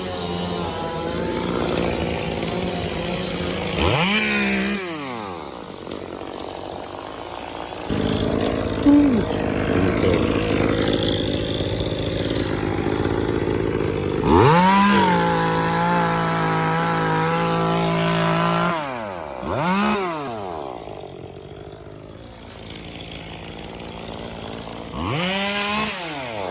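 Chainsaw revving up and dropping back several times while cutting gum tree limbs, with one longer full-throttle cut of about four seconds in the middle.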